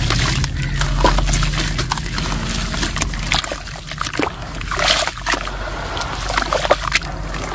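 Dry, crumbly cement broken up by hand into a tub of water, then squeezed and kneaded as wet slurry under the water: irregular splashing and sloshing, with many small crackles and spatters.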